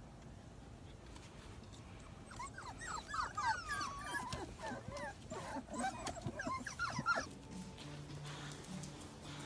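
A litter of Australian Shepherd puppies whining and yelping together: many short, high whimpers overlap for about five seconds, starting a couple of seconds in and stopping abruptly.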